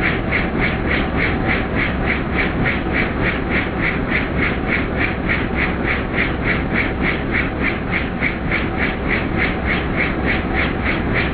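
Helicopter noise heard inside the cabin in flight: a steady rotor and engine drone with a regular pulsing about three beats a second.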